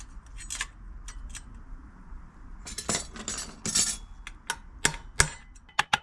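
Metal-on-metal clinking, scraping and tapping of a headset cup removal tool being worked in a bicycle head tube to drive out the bottom headset cup, with sharper, quicker metallic knocks near the end.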